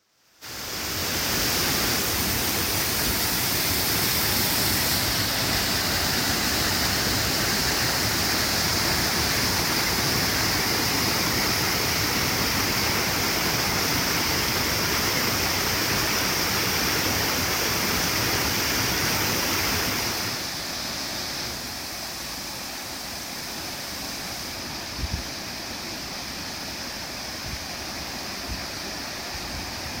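Steady rushing and splashing of a tall waterfall pouring down a cliff. It sets in abruptly, drops to a quieter level about two-thirds of the way through, and has a few soft low bumps near the end.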